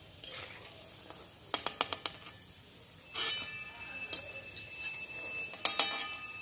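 A quick run of about five metallic clinks as the steel slotted spoon knocks against the crisp-fried lentil fritters and the steel kadai. About three seconds in, a steady sizzle of hot frying oil starts, with a couple more clinks near the end.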